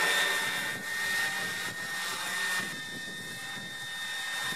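Electric scale RC helicopter, a 1:10 UH-1Y on a Raptor 50 frame, flying: a steady high whine from its motor and drive over an even rush of rotor and air noise. The sound changes abruptly about two and a half seconds in, the whine growing weaker.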